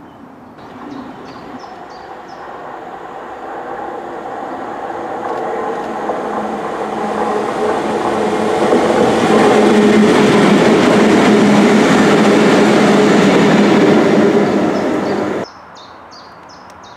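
Pair of Class 60 diesel locomotives approaching and passing close, their engines growing steadily louder to a loud, steady run before the sound cuts off suddenly near the end. Birds chirp faintly before they arrive and after the cut.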